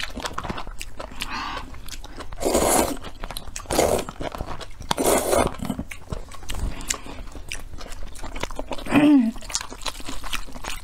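Close-miked eating: noodles slurped in three noisy bursts, between wet chewing and many small clicks of chopsticks and mouth. A brief hummed vocal sound comes about nine seconds in.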